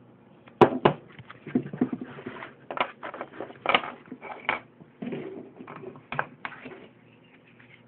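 Irregular clicks, knocks and scrapes of hard plastic being handled: a polymer Glock magazine and a plastic magazine sleeve being worked together and set against a countertop. The sharpest knock comes about half a second in.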